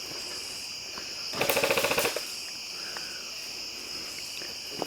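Airsoft gun firing a short full-auto burst of rapid shots, from about a second and a half in, for under a second. Crickets chirp steadily underneath.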